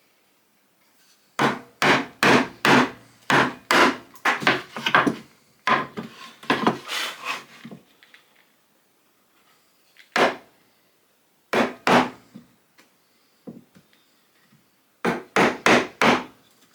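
Hand tool working timber: a fast run of short, sharp strokes on wood for several seconds, then a few single strokes, then four quick ones near the end.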